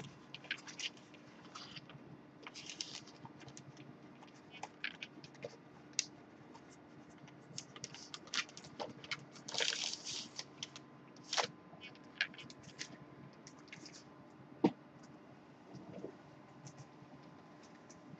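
Faint handling noise from a LaserDisc jacket in a clear plastic sleeve being held up and set down: scattered scrapes, rustles and small clicks, with one sharper click about fifteen seconds in, over a low steady hum.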